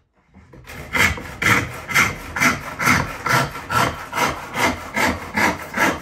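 A coarse 4 TPI ripsaw ripping a board along the grain in fast, even strokes, a little more than two a second, starting just under a second in. The saw cuts quickly, a sign that its teeth are still sharp.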